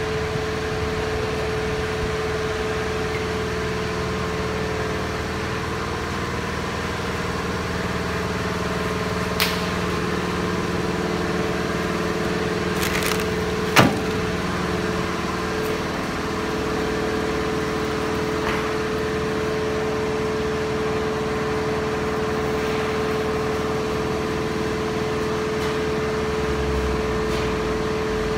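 Steady machine hum with one clear steady tone running through it, broken by two sharp knocks, the louder one about halfway through.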